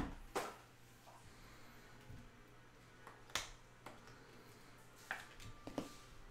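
Scattered sharp clicks and taps from clear acetate trading cards being handled on a table, about five of them, the loudest at the very start.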